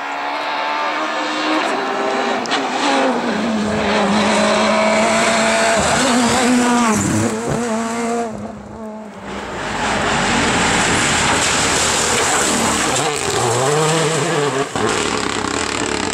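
Rally cars on a tarmac special stage, engines revving hard, the pitch rising and falling through gear changes and braking as the cars pass one after another. There is a short break in the sound about eight to nine seconds in.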